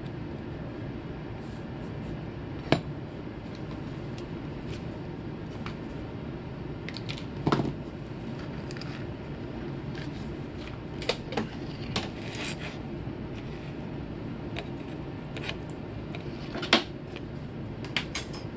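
Scattered light clicks and taps of small hard objects on a workbench as a soldering iron and an Arduino Mega circuit board are handled, moved and set down, over a steady low background hum. The sharpest clicks come about 3 seconds in, about 7 seconds in, and near the end.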